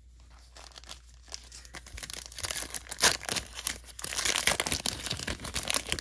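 Foil wrapper of a Panini Phoenix basketball card pack crinkling in the hands and being torn open, the crackling building about two seconds in and staying loud to the end.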